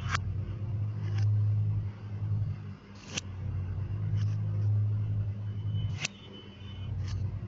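A low, steady hum that swells and fades, with three sharp clicks about three seconds apart.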